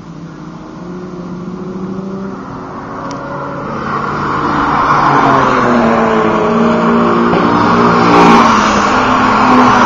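Race cars on track at full throttle approach and pass, the engine noise swelling from about four seconds in. The engine pitch slides down as they go by.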